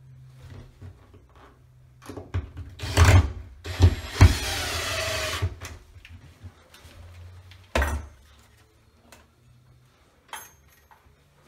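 Knocks and clunks of a small metal bracket being set against drywall, with a power drill/driver running for about a second and a half around four seconds in, driving a screw into the bracket over a drywall anchor; one more sharp knock near eight seconds in.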